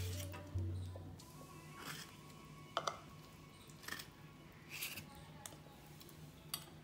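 Background music with deep bass notes that stops about a second in, followed by a few soft, squishy taps of peeled mango slices being dropped into a plastic grinder jar.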